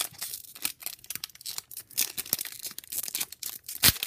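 Foil wrapper of a hockey trading-card pack crinkling and tearing as it is opened by hand: a dense run of sharp crackles, with one loud crackle near the end.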